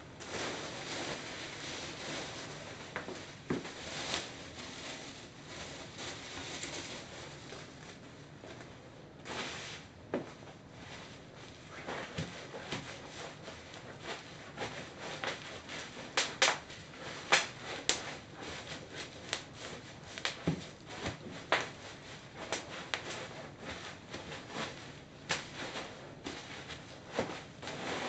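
Bubble wrap being trampled under Birkenstock sandals: the plastic crinkles and rustles, with sharp single pops of bursting bubbles scattered irregularly, more frequent and louder in the second half.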